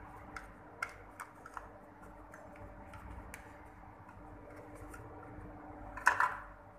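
Small clicks and taps of plastic parts being handled over a faint steady hum. About six seconds in comes a short, louder clatter as a plastic part is set into the metal fixture under the ultrasonic welding horn.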